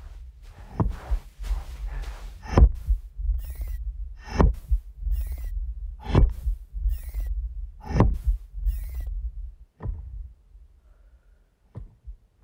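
Fremen thumper hammering into the sand to call a sandworm, as heard in film sound design: deep rhythmic thuds about one a second, many with a sharp high click on top. Near the end it falls much quieter, with only a couple of isolated thuds.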